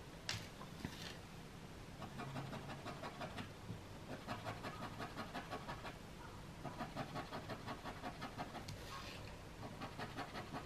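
A small metal scraping tool scratching quick short strokes through a layer of oil pastel on paper (sgraffito). The strokes come in runs of about five a second, with two clicks in the first second.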